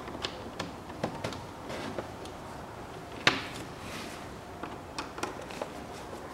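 Scattered light plastic clicks and knocks from handling the open air filter box of a Volkswagen Passat B6 as a new panel air filter is pressed into place, with one sharper knock about three seconds in.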